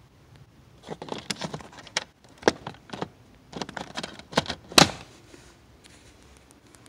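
Hard plastic clicks and knocks as the fuse-box cover under a Honda Civic's dashboard is handled and fitted back. About four seconds of irregular taps, with the loudest sharp snap near the end.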